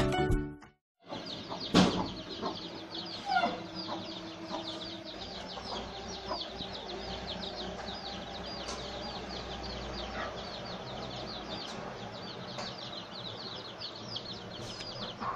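A brood of chicks peeping rapidly and continuously in short high falling chirps, with a mother hen clucking now and then. A sharp knock about two seconds in.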